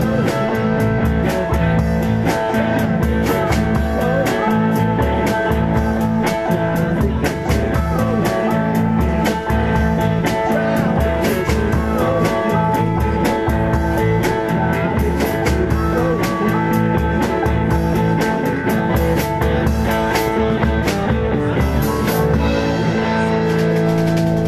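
Live blues band playing, electric guitar over a drum kit, with bending guitar notes.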